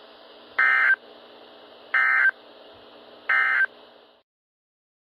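NOAA Weather Radio SAME end-of-message signal: three short, identical digital data bursts about 1.3 s apart, marking the end of the Required Weekly Test. A steady receiver hiss runs beneath them and cuts off suddenly near the end.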